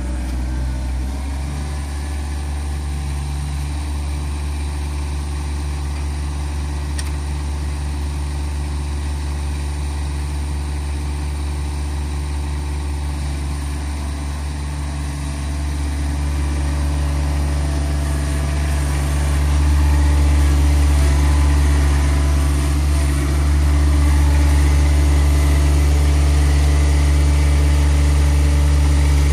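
John Deere 1026R compact tractor's three-cylinder diesel engine running steadily, louder in the second half as the backhoe is worked.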